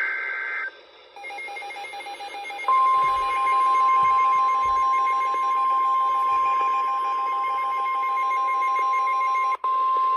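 NOAA Weather Radio alert tones: a short burst of SAME data tones ends, then a rapidly pulsing beep sounds. About three seconds in, the steady 1050 Hz warning alarm tone joins it; it drops out for an instant near the end and comes back.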